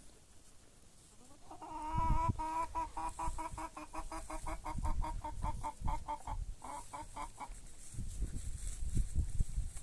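Hen cackling: a fast run of short, evenly repeated notes, about five a second, starting a second and a half in and lasting some six seconds, with low thumps underneath.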